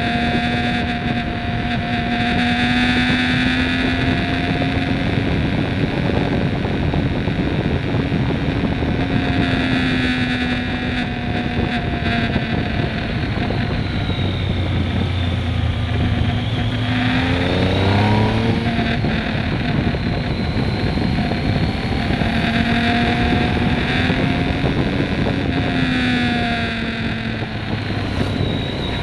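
Onboard sound of a Triumph Speed Triple R 1050's three-cylinder engine running under way at a fairly steady pitch, with wind rushing over the microphone. Partway through, the revs climb quickly once before settling back.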